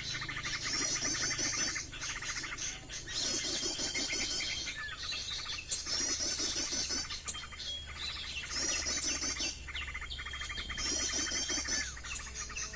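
Recorded bird calls played through a speaker as a lure for trapping small birds: the same short sequence of high chirps and trills repeats every two to three seconds, like a loop.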